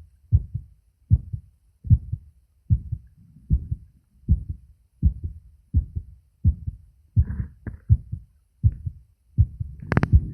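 A man's heartbeat picked up by a phone microphone held against his chest: steady lub-dub pairs, a little under 80 beats a minute. Near the end comes one sharp click, followed by a low rubbing rumble under the beats.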